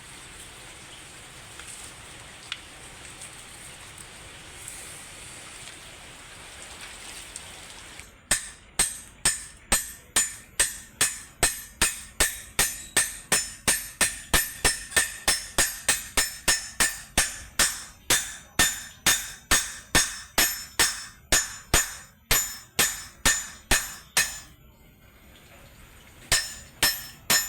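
A steady hiss, then, about eight seconds in, a hammer begins striking metal in quick, even blows, about two a second, each with a ringing clang. The blows drive a part onto a Mitsubishi Canter truck transmission shaft during reassembly. They stop briefly near the end, then resume.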